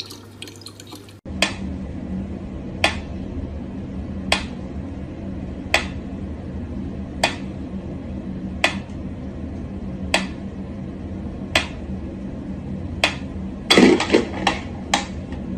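A pyramid-shaped mechanical metronome ticking slowly, one sharp tick about every second and a half, over a low steady hum. Near the end comes a quick run of louder clicks and knocks as a cat paws at it.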